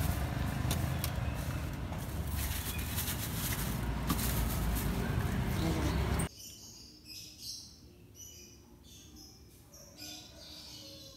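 Roadside street noise with a low rumble and scattered light clicks, cut off suddenly about six seconds in. After the cut a much quieter background holds faint, short, high chirps.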